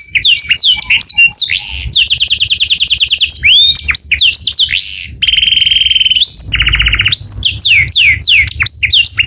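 Male canary singing a fast, varied song of rapid rising and falling whistled sweeps. About two seconds in, a quick trill of evenly repeated notes runs for over a second; near the middle comes a held whistle, then a lower fast trill and more sweeps.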